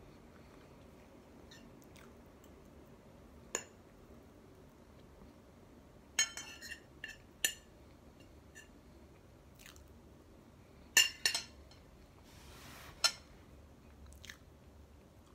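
A metal fork clinking and scraping against a ceramic plate in scattered sharp taps, the loudest a close pair about two-thirds of the way through, with chewing of soft cake between them.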